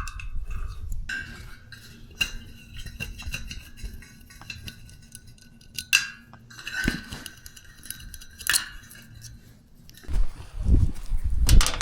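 Scattered light metallic clinks and taps, some with a brief ringing note, as the loosened condenser fan motor and its metal hardware are handled and worked free; a low rumble near the end.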